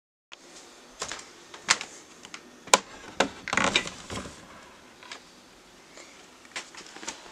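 Irregular sharp clicks and light knocks, with a short rustle about three and a half seconds in.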